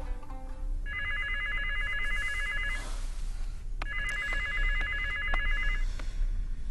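Landline telephone ringing: two trilling electronic rings of about two seconds each, about a second apart. A few light knocks sound between the rings.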